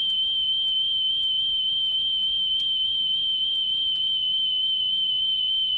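Steady test tone of about 3 kHz from a 3150 Hz wow-and-flutter reference tape played on a Sony WM-FX491 Walkman cassette player, heard through an external speaker. Its pitch wavers slightly and sits off the proper frequency: the tape speed is not right and the flutter is high.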